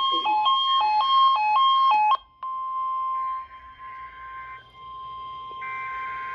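A quick run of alternating electronic beeps, then about two seconds in a single steady tone near 1 kHz that holds for about four seconds: the NOAA Weather Radio 1050 Hz warning alarm tone, sounded as its weekly test.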